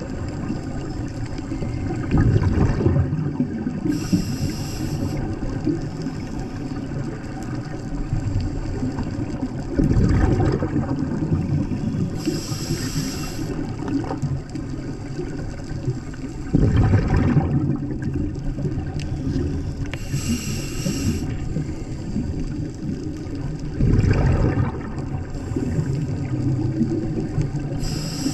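Scuba diver breathing through a regulator, heard underwater: four breaths about seven seconds apart, each a low rush of exhaled bubbles followed a second or two later by the high hiss of an inhalation, over a steady underwater wash.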